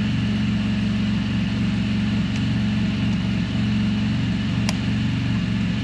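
An engine idling steadily, with a sharp click about four and a half seconds in.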